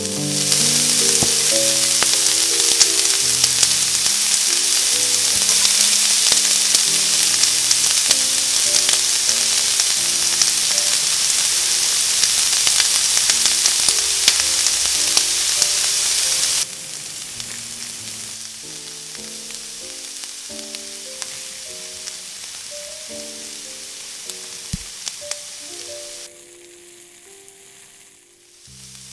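Whole shrimp sizzling in hot olive oil in a frying pan, loud at first, then suddenly much softer about sixteen seconds in and softer again near the end.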